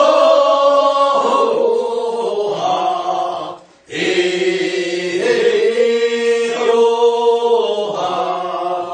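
Korean rice-paddy weeding work song (non maeneun sori): a group of voices sings the drawn-out refrain together, answering the lead singer's verse. It comes in two long held phrases with a short break about three and a half seconds in.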